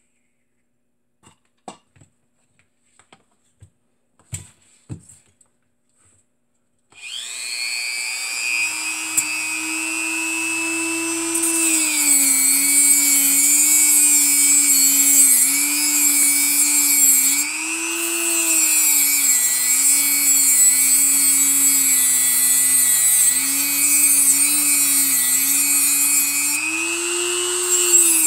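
A few light handling clicks, then about seven seconds in a Dremel rotary tool starts up and runs with a high whine. From about five seconds later its cut-off disc grinds through the nickel strips that link the battery cells, adding a gritty hiss, and the whine dips and recovers as the disc bites.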